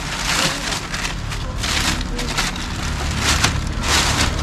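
Thin plastic bag crinkling and rustling in about five short bouts as it is handled, over a low steady rumble.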